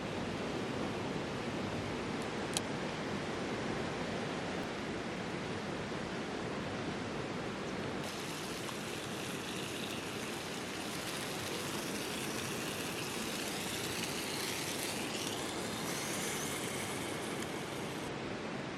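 Steady rushing of a river flowing over rocks, with one short sharp click about two and a half seconds in. From about eight seconds in the rush grows brighter and hissier, with faint wavering high tones for several seconds.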